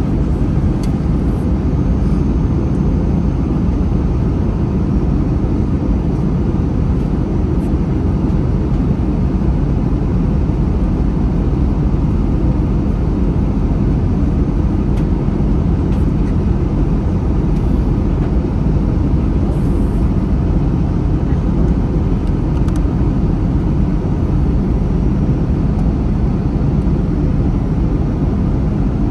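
Airbus A321 cabin noise in flight: a steady rush of airflow and jet-engine noise, deep and unchanging.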